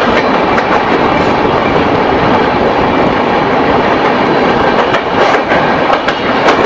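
Loud, steady rushing noise of the Poorva Express at speed as it passes a MEMU train close on the next track, heard at an open coach doorway. Wheels clatter over rail joints in a run of clicks near the end.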